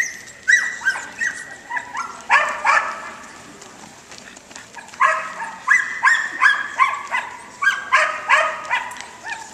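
Border Collie barking in rapid runs of short, high barks, four runs with short pauses between them.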